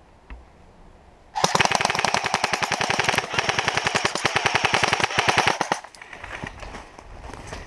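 Airsoft rifle firing on full auto: a long, rapid string of shots starting about a second and a half in and lasting over four seconds, with a brief break partway through.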